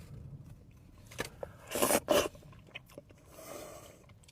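Close-miked eating: a person biting and chewing food, with small wet clicks and two louder crunchy bites about two seconds in.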